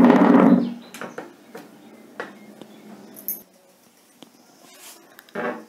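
Faint scratching and light ticking of a ballpoint pen writing on paper. It comes between two short voice-like sounds, one at the very start and one near the end.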